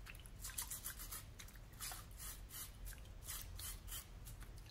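A brush scrubbing green pine cones to clear the dust off them: quick scratchy strokes, several a second, coming in short runs.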